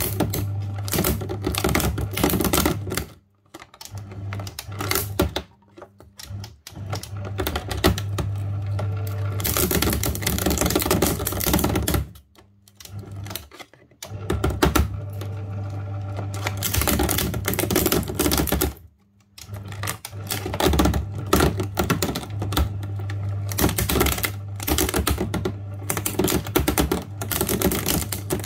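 Electric paper shredder running as it chews through a stiff clear plastic panel from a DVD player: a steady motor hum under rapid crackling and snapping of the plastic. The motor cuts out and starts again four times.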